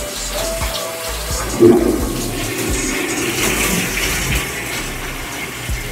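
Toilet flushing: a sudden rush of water starts about a second and a half in and runs on as the bowl empties and refills.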